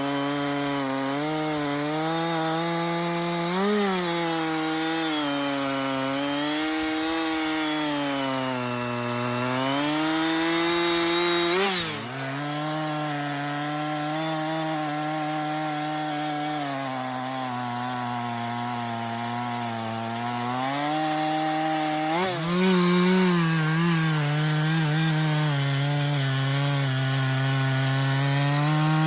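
Husqvarna two-stroke chainsaw cutting through a sycamore trunk. Its engine pitch sags and recovers as the chain bites into the wood. It drops briefly about twelve seconds in and runs up higher again about three-quarters of the way through.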